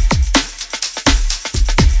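Electronic background music with a fast, steady beat of deep kick drums over heavy bass and crisp hi-hats.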